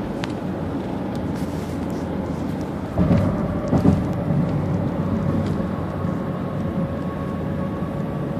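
Car driving at highway speed, heard from inside the cabin: steady road and engine noise, with a couple of louder low rumbles about three and four seconds in.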